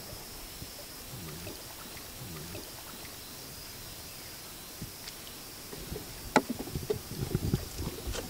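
A hooked fish thrashing and splashing at the surface beside a wooden longtail boat as it is played on light tackle, with a burst of sharp knocks and splashes about six seconds in as it is brought alongside the hull. A steady high insect buzz from the forest runs underneath.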